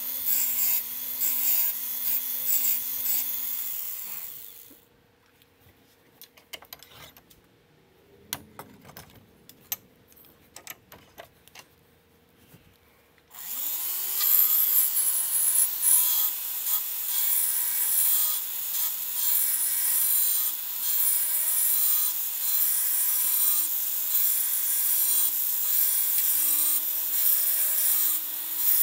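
Small motor-driven checkering cutter cutting lines into wooden 1911 pistol grip panels: a steady motor hum with a hiss of cutting. Four or five seconds in it stops, leaving near silence with a few faint clicks. About thirteen seconds in it spins up again and carries on cutting.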